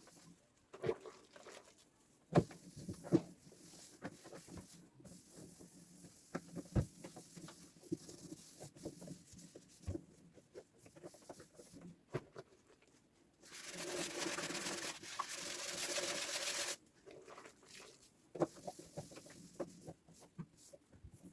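Objects being handled, with scattered light knocks and clicks, and a steady rushing hiss lasting about three seconds a little past the middle.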